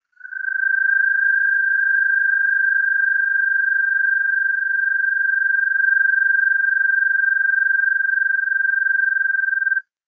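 American toad giving its long, musical trill: one steady, even-pitched trill that lasts nearly ten seconds and cuts off near the end.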